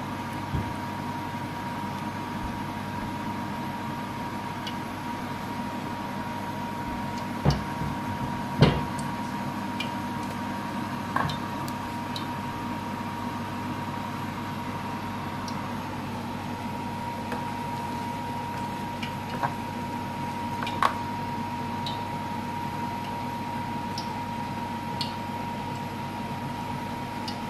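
Steady kitchen appliance hum with a thin high whine, broken by a few light knocks and clicks. The loudest knocks come about a third of the way in.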